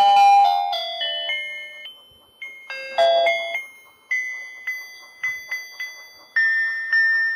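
Electronic tune from a battery-powered rotating fishing game toy: a tinny melody of single beeping notes stepping from pitch to pitch. There are sharp clicks near the start and about three seconds in.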